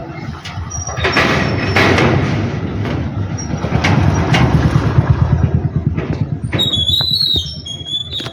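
A motor vehicle's engine running loud and close, with a fast pulsing low drone, and a wavering high-pitched squeal near the end.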